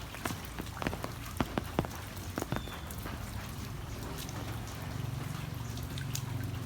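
Heavy rain falling, with sharp close raindrop hits over the first couple of seconds. A low steady rumble grows stronger about two-thirds of the way in.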